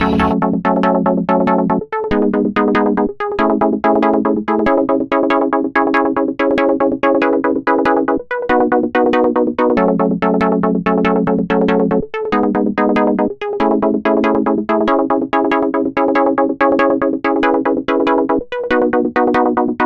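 Background music: a synthesizer or electric keyboard playing a fast, even run of repeated notes over slowly changing chords.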